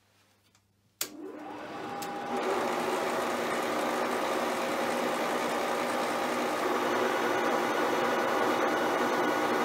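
Schaublin SV52 milling machine switched on about a second in: a click, then the spindle drive in back gear spins up with a rising whine and settles into a steady whine with hiss as the cutter mills a cast iron straightedge casting under power feed.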